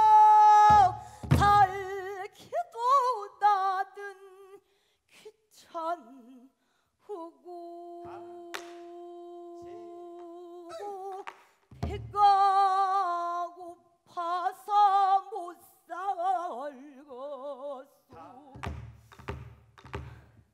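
Female pansori singer singing a lamenting passage in the sorrowful gyemyeon mode, her voice wavering with wide vibrato and breaking off between phrases, with one long held note in the middle. Low thuds of the buk barrel drum accompany her near the start, about twelve seconds in and near the end.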